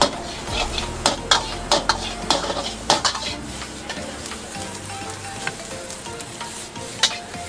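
Fried rice sizzling in a wok while a metal ladle stirs it, with sharp metal clangs of ladle on wok coming thick in the first three seconds and one more knock near the end.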